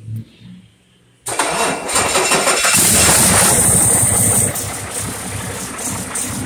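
2009 Cummins ISX inline-six diesel engine starting abruptly about a second in and running loudly with a high hiss over it, then settling a little quieter into a steady idle about four and a half seconds in.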